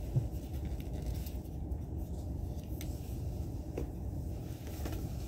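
Steady low rumble inside a train carriage, with a few light clicks and rustles as a plastic folding phone stand and its tissue-paper wrapping are handled.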